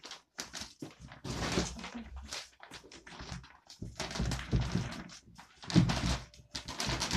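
Plastic bag of potting soil crinkling as it is handled and tipped, with soil pouring into a pot in irregular rustling bursts and a few dull thumps, the heaviest about six seconds in.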